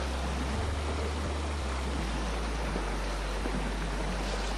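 Shallow river riffle: water rushing steadily over stones, with an uneven low wind rumble on the microphone.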